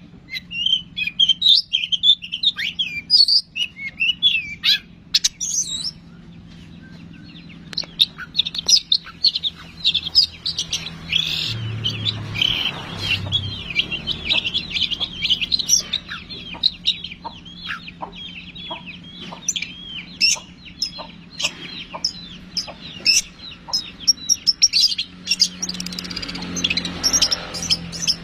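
Long-tailed shrike (cendet) singing vigorously: a fast, varied twittering and chattering song that pauses for a couple of seconds about six seconds in, then runs on almost without a break.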